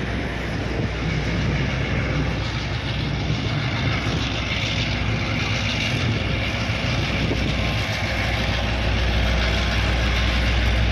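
Diesel-electric locomotive running steadily with a low engine hum as it slowly hauls a string of painted passenger coaches, getting a little louder about nine seconds in as it comes closer.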